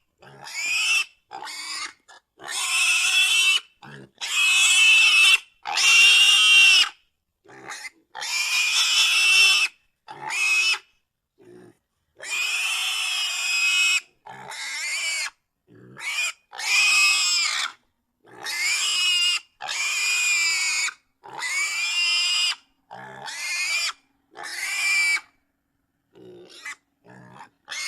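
A pig squealing over and over: a long string of loud, high-pitched squeals, each half a second to a second and a half long, with short silent gaps between them.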